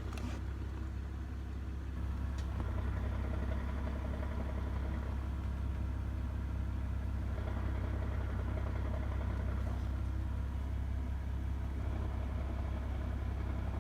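2006 BMW 330i's straight-six engine idling steadily with the clutch pedal pressed down. Holding the clutch down makes the idle knock go away, a knock the owner thinks is a bad throwout bearing.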